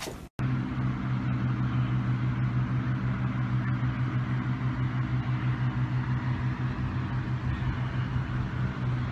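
Steady low engine hum with a wavering loudness, over a rushing hiss of wind on the microphone.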